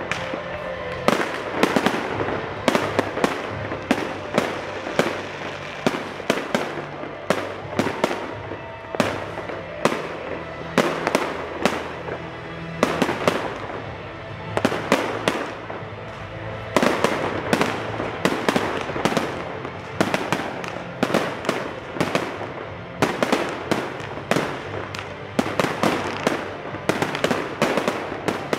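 Aerial fireworks going off in a dense, irregular barrage of bangs, several a second with a few brief lulls, over background music.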